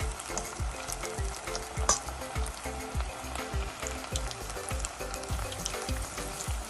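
Batter-coated chicken pakoras deep-frying in smoking-hot oil: a steady sizzle full of small crackles and pops, with one sharper pop about two seconds in. A regular low thumping, a few beats a second, runs underneath.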